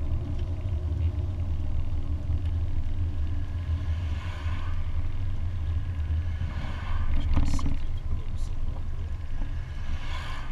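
Interior engine and road noise of a Lancia Delta HF Turbo cruising along a country road: a steady low rumble. It gets louder for a moment about seven seconds in, with a couple of sharp clicks.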